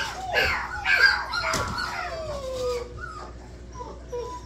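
A litter of rough collie puppies whining and yipping, several high calls overlapping, with one long whine falling in pitch about two seconds in. The calls grow fainter and sparser in the second half.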